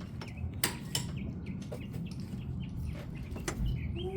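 Small birds chirping now and then, with a few sharp clicks of hand tools on metal bolts.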